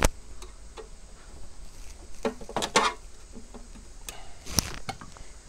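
Small clicks and knocks of a screwdriver working the top screws out of a steel battery front panel while it is handled, with a sharp metallic click about four and a half seconds in.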